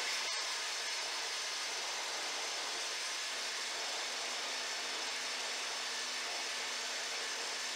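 Table saw running, its blade shaving a drill-spun square wooden blank into a round dowel through a jig. The result is a steady, even whirring hiss with a faint low hum.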